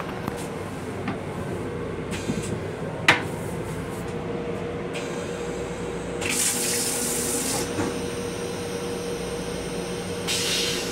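Metro-North M7 railcar toilet flush cycle: water sprays into the stainless-steel bowl in two short hissing bursts, about six seconds in and again near the end, over a steady hum. A sharp click comes about three seconds in.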